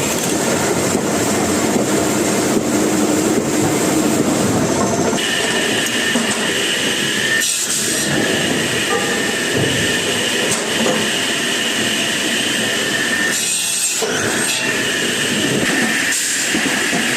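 Log-peeling machinery in a wood veneer factory running loudly, a continuous rumbling clatter. About a third of the way in, a high steady whine joins it and breaks off briefly twice.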